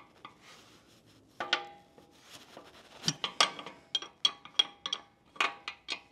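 A steel combination wrench clinking against the suspension linkage pivot-bolt nut and the center-stand tubing: about a dozen sharp metallic clinks at irregular spacing, some ringing briefly. The nut is being worked loose in tiny steps, the wrench repositioned after each short turn because the center stand blocks its swing.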